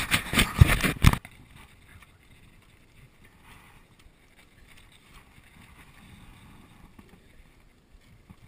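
Loud rubbing and knocking right against the camera for about a second, cutting off abruptly. After that, faint handling sounds as gloved hands work on a broken mountain-bike chain and derailleur.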